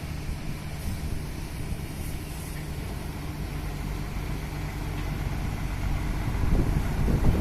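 A motor vehicle's engine running steadily with a low hum under a constant hiss, getting louder near the end.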